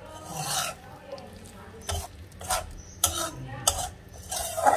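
Flat metal spatula stirring and scraping thick chana masala around a metal wok, in a series of about six short scrapes.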